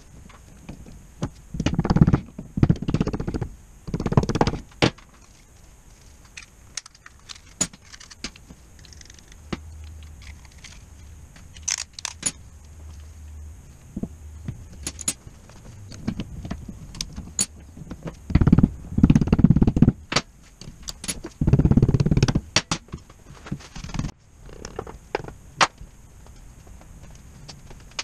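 Metal parts of a Midland truck air compressor being handled in a vise: scattered clinks, knocks and scrapes. Louder bouts of rubbing and handling noise come a couple of seconds in and twice about two-thirds of the way through.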